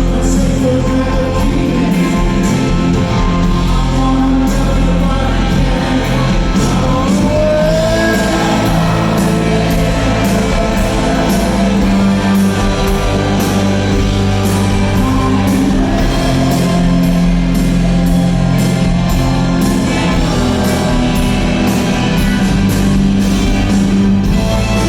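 Live rock band playing loud with electric guitar, bass and drums, with singing over it.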